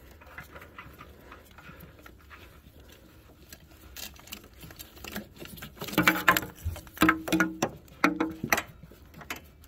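Gloved hands turning an oxygen sensor into its threaded exhaust port, making soft clicks and rubbing. It is faint at first, then from about six seconds in comes a run of short scraping, clicking sounds.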